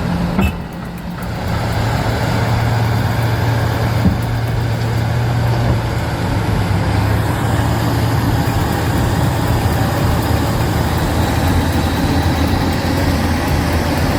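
Heavy diesel engines of excavators and a bulldozer running in a steady low drone, with a brief drop in loudness about half a second in.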